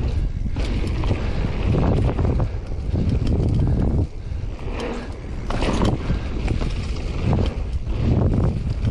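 Mountain bike descending a dirt singletrack at speed: wind buffeting the microphone over a low tyre rumble, with frequent clicks and knocks from the bike rattling over bumps and roots. The level eases briefly about four seconds in.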